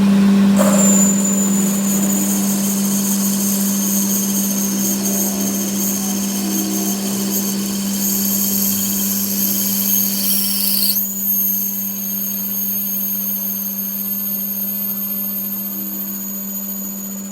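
A workshop power tool or machine running steadily, with a constant low hum and a high whine; the whine slides down and changes pitch about eleven seconds in.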